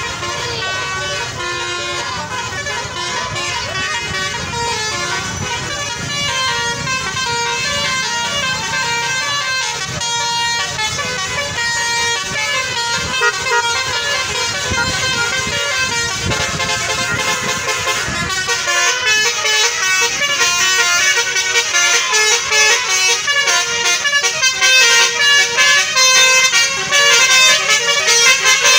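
A bus's 'telolet' multi-tone musical air horn playing a tune of stepping notes over the bus's engine running. The engine rumble drops away about two-thirds of the way through, and the horn grows louder toward the end.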